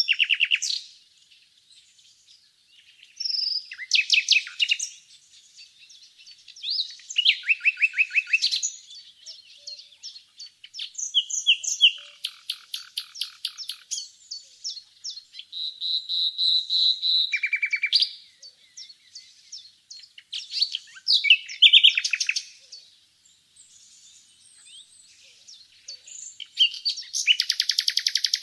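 Common nightingale singing: separate varied phrases a second or two apart, among them fast rattling trills of repeated notes and, about halfway through, a steady whistled note.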